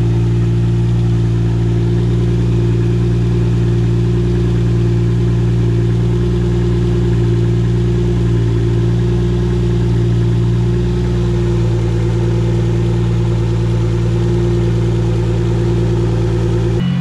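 Toyota 1JZ-GTE turbocharged straight-six idling steadily, being run up to temperature after a coolant fill to check the cooling system.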